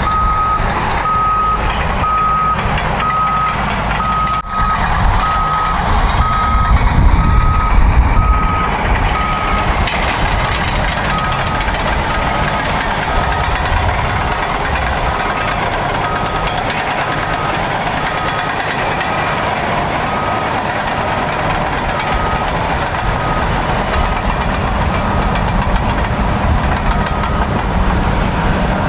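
Caterpillar bulldozer diesel engines running under load, with a reversing alarm beeping at an even pace. The engine rumble swells for a few seconds near the start, and the beeps grow fainter and more widely spaced after about five seconds in.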